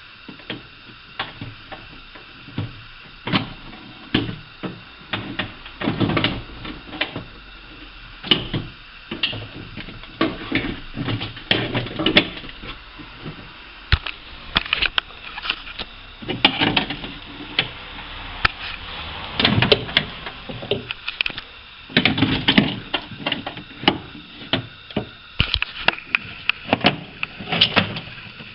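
Irregular clicks, knocks and metallic rattles of hand tools and loose metal parts against a car door, as the window regulator assembly is unbolted or fitted. The knocks come in denser clusters past the middle and towards the end.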